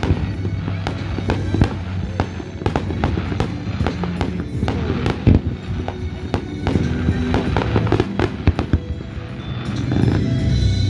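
Fireworks display: a rapid run of sharp bangs and crackles from shells bursting, with music playing underneath. The loudest bang comes about five seconds in.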